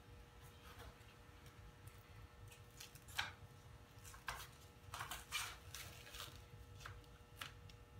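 Paper backing of a vinyl graphic being peeled back and handled: a few short, crackling paper rustles, the loudest about three seconds in and again around five seconds in.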